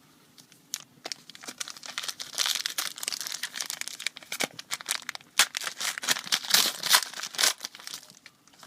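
Foil wrapper of a trading-card pack being torn open and crinkled by hand, a dense run of irregular crackles and snaps.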